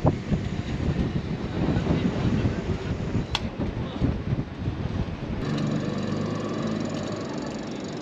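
Gusty wind buffeting the microphone, with one sharp click about three and a half seconds in; after about five and a half seconds it gives way to a steadier droning hum.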